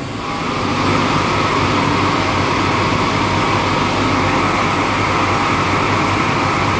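Trane CVHF centrifugal chiller compressor running with a steady, loud rushing noise and an even high whine, its surging pretty much stopped.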